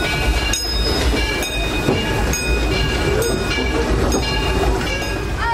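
Disneyland Railroad steam train running along the track: a steady rumble with a ringing clack about once a second.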